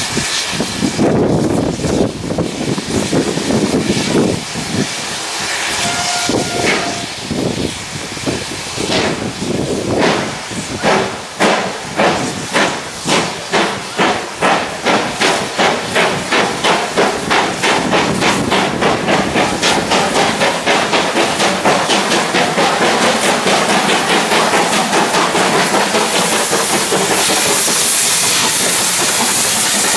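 Steam locomotive working hard as it pulls away, with steam hissing. Its exhaust chuffs start about one a second and quicken into a rapid run, then merge into a steady roar as the engine comes close.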